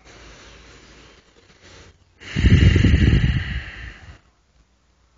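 A person breathing audibly close to the microphone: a faint drawn breath, then a louder, noisy breath about two seconds in that lasts about two seconds.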